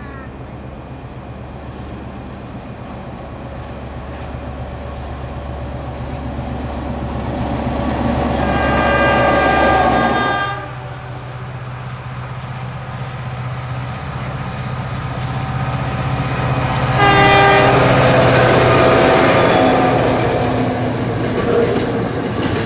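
Diesel locomotive's engine running and growing louder as the train approaches, its horn sounding for about two seconds before the sound cuts off abruptly about ten seconds in. The train noise builds again, and a second, louder horn blast comes about seventeen seconds in.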